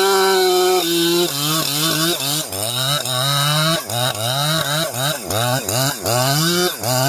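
Chainsaw cutting oak wood at high revs. The engine note holds steady at first, then from about two and a half seconds in it repeatedly sags and climbs back about twice a second as the chain bites into the wood.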